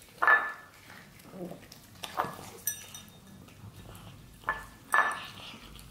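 Cats eating dried fish from glass bowls: about five sharp clinks of glass, two of them with a short ring, the loudest just after the start and about five seconds in, with quieter crunching and scraping between them.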